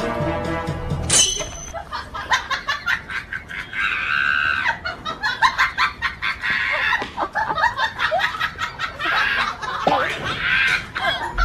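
Background music cuts off about a second in. Then comes a scuffle between a dog and roosters at a metal barred gate: rattling and knocking, with bursts of squawking and a person laughing and shrieking.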